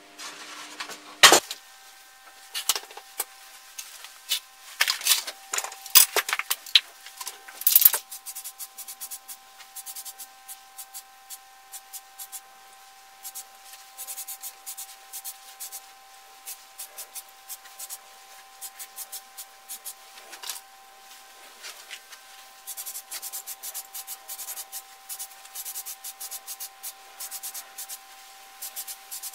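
Sharp metal clinks and knocks as the welded steel climbing spike is handled, then a long run of short aerosol spray bursts as paint is sprayed onto it, with a faint steady tone behind.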